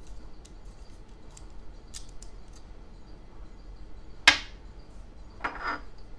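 A small brass cartridge-shaped piece dropped onto a tabletop: one sharp metallic clink with a short ring about four seconds in, then a second, softer clatter a second later. Light metal clicks from handling the piece come before it.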